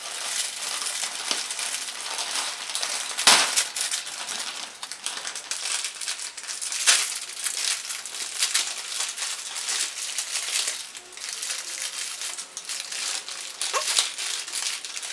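Plastic wrappers of Red Chef instant noodle packs crinkling continuously as they are torn open and the noodle blocks and seasoning sachets are pulled out. There are sharper crackles about three and seven seconds in.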